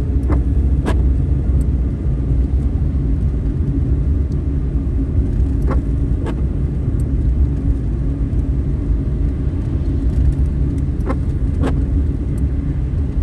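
Steady low road and engine rumble heard inside a moving car's cabin. Every five to six seconds there is a pair of short clicks about half a second apart from the windscreen wipers on an intermittent setting sweeping the rain-wet glass.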